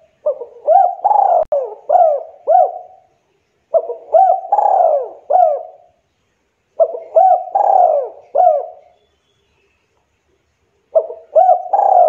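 Spotted dove cooing its song: three phrases of about five short, arching coo notes each, a phrase every three seconds or so. A fourth phrase starts near the end after a slightly longer pause.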